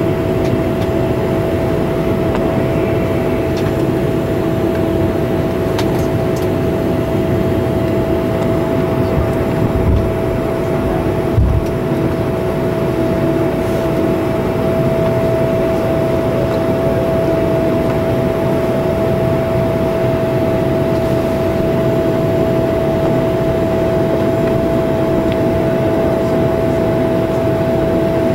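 Cabin noise inside a Bombardier CRJ-200 on the ground: a steady hum with a held whine from its rear-mounted General Electric CF34 turbofans at idle. Two short low thumps near the middle.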